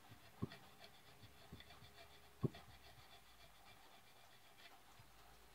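Knife cutting into a wooden ax handle: faint scraping and ticking, with sharp wooden thuds about half a second and two and a half seconds in, the second the loudest.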